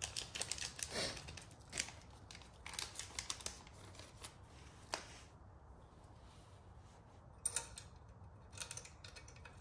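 Small metal clicks and light scrapes of 3 mm Allen screws being started by hand into a motorcycle sidestand base extension, as its pieces are lined up. There is a quick run of clicks over the first three seconds or so, then a single sharp click about five seconds in and a few scattered ones near the end.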